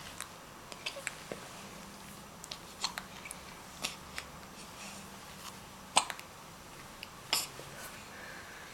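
A baby hiccuping: short sharp clicky hiccups coming irregularly every second or so, the loudest about six and seven seconds in.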